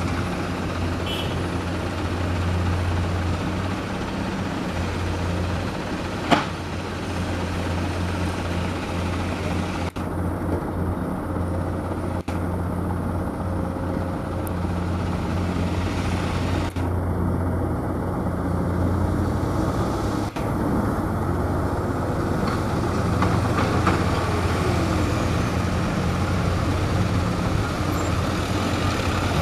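Dump truck diesel engines running at a steady idle, a continuous low hum that changes abruptly several times. A single sharp knock about six seconds in.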